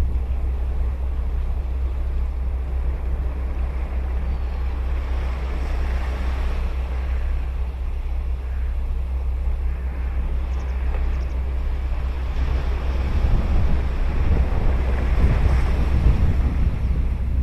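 Ocean waves breaking and washing up a beach, with wind rumbling on the microphone. The surf swells about a third of the way in and again, louder, near the end.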